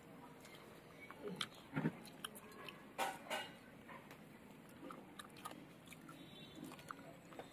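Quiet eating sounds: biting and chewing chicken curry with rice, with scattered small clicks and smacks, a few louder ones about two and three seconds in.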